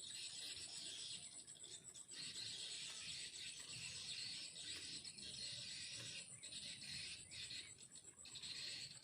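Faint insect chorus: a continuous high, pulsing trill with a hissing chirr beneath it that dips briefly a few times.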